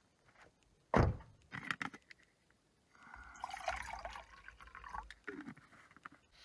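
Water poured from a bottle into a small cooking pot on a gas-canister backpacking stove, gurgling for about two seconds. A sharp knock and a few clicks come first, about a second in.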